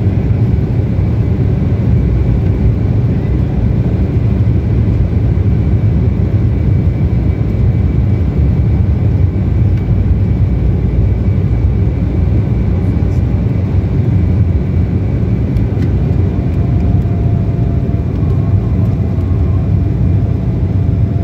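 Jet airliner engines at takeoff thrust, heard from inside the cabin as a loud, steady low roar during the takeoff run and climb-out. A faint whine creeps up slightly in pitch near the end.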